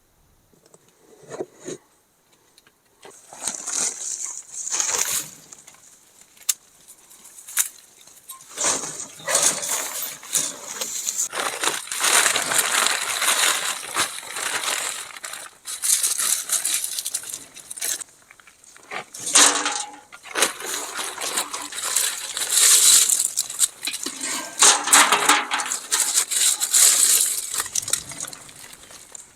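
Sheep feeding on dry maize kernels and carob pods: dense, irregular crunching with clicks and rattles, sparse at first and then continuous.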